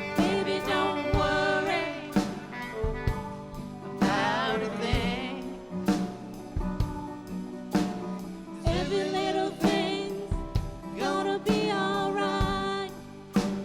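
Live band playing a reggae song, with wordless sung vocals over guitar and a drum beat.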